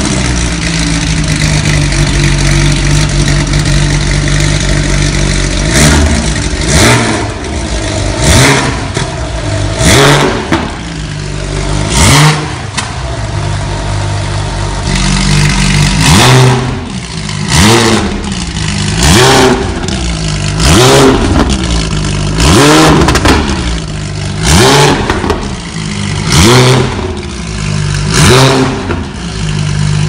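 Porsche 991 GT3 RS's naturally aspirated flat-six, breathing through a valved cat-back exhaust and catless downpipe, idling steadily at first. It is then revved in more than a dozen quick throttle blips, each rising sharply and dropping back to idle. Over the last half they come about every one and a half to two seconds.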